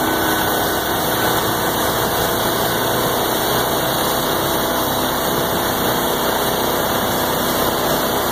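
Engines of road-coating machinery running steadily, a constant drone with no change in speed.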